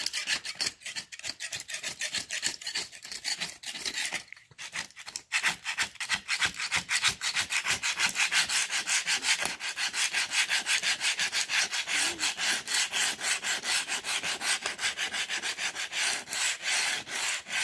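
Putty knife scraping dried concrete crack filler off a concrete floor in rapid, even back-and-forth strokes, with a short pause about four seconds in.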